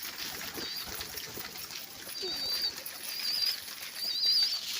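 Birds calling: short high-pitched twittering calls about once a second, four in all, over a light rustle. A short falling low note comes about two seconds in.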